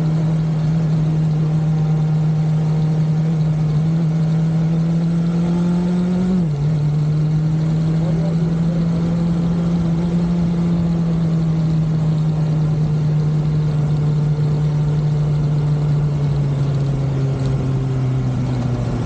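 BMW S1000XR inline-four engine running at steady riding revs. Its pitch climbs slightly, drops sharply and briefly about six seconds in, then holds steady and eases lower near the end.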